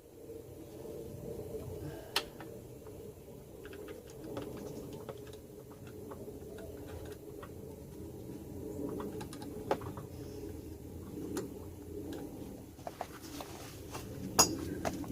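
Scattered small metallic clicks and taps of hand tools and parts working at a car's rear brake caliper, with sharper clicks about two seconds in and near the end, over a steady low hum.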